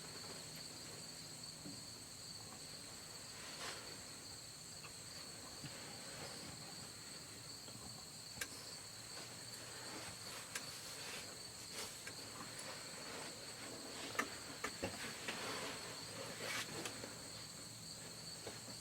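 A steady chorus of crickets, a continuous high-pitched trill, with a few faint clicks and rustles about three quarters of the way through.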